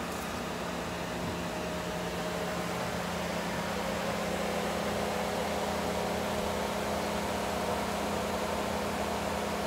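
Steady mechanical hum of suburban machinery over a hiss, with a few constant tones, growing a little louder.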